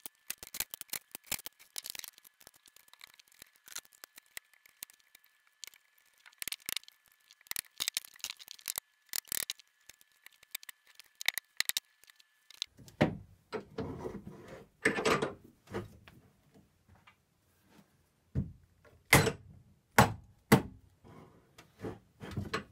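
Wooden chair frame being knocked and pulled apart at its loose glued joints. Light clicks and rattles of wood come first, then, from about halfway through, a run of heavier wood-on-wood knocks and thuds.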